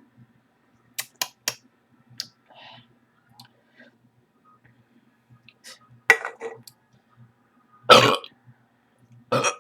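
A woman burping after drinking Coca-Cola: a shorter burp about six seconds in, a loud, longer one near eight seconds, and another just before the end. A few sharp clicks come about a second in.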